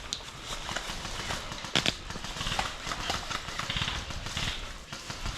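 Footsteps crunching and rustling through dry leaves and brush, with a few sharp cracks scattered through, the loudest about two seconds in.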